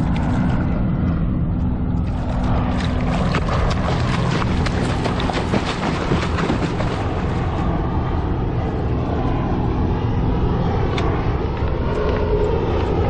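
A large African pompano thrashing at the surface beside the kayak, splashing water hard for several seconds in the middle, over a steady low rumble.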